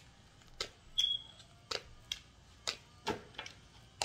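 Tarot cards being shuffled and handled, an irregular series of short snaps and taps as the cards strike each other. A brief high tone sounds about a second in.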